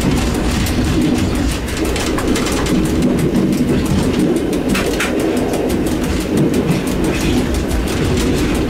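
EN57 electric multiple unit running, heard from inside the driver's cab: a steady low rumble with a dense, rapid clatter of clicks over it.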